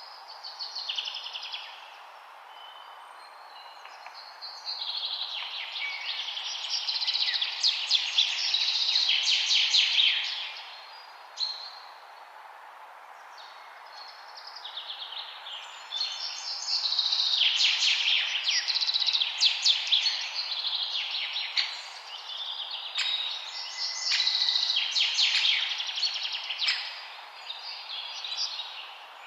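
Wild birds singing in long spells of rapid, trilling notes, about three main spells with quieter gaps between, over a steady background hiss of forest ambience.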